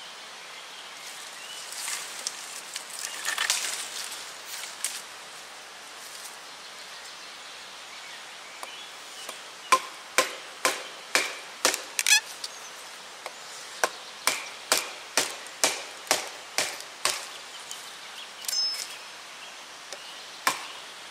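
Ontario Old Hickory 30 cm knife chopping through a small wooden log: some rustling and scraping about two seconds in, then a fast run of sharp knocks, about two a second, for some seven seconds, and one more strike near the end.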